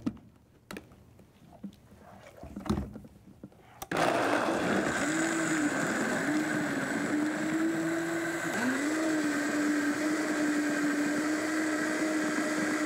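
Countertop blender switched on about four seconds in and running fast, grinding cashews with vegetable broth, onion and garlic into a creamy sauce. Its hum dips and rises a few times as the load shifts, then holds a steady pitch. Before it starts, a few light clicks from handling the jar.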